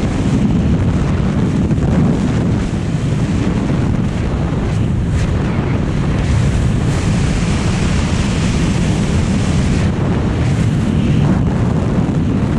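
Freefall wind rushing over a skydiver's body-mounted camera microphone: loud, steady wind noise throughout.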